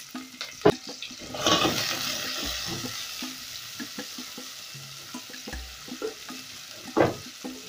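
Sliced red onions sizzling in hot oil in an aluminium pan while a silicone spatula stirs them. The sizzle swells about a second and a half in, and the spatula knocks sharply against the pan once early and again near the end.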